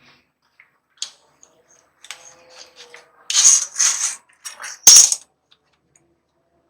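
Metal tool work on an antique hand saw: a light clink, then scraping with a faint ring, two loud rasping strokes and a sharp metallic knock, the loudest sound.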